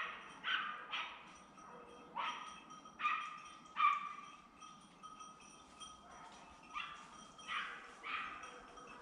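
Jagdterrier barking while hunting wild boar. About nine sharp barks come in two runs, with a pause of a couple of seconds in the middle.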